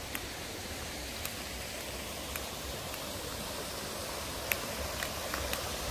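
Steady rushing noise of the river running through the gorge, with a few sharp clicks scattered through it, more of them in the second half.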